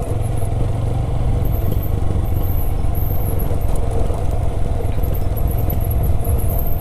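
Motorcycle running steadily as it is ridden, heard from the rider's seat as a continuous low rumble.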